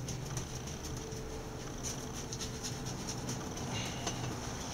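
Faint soft rubbing and light ticks of a hand working ear cleaner into a yellow Labrador's ear, over a steady low hum.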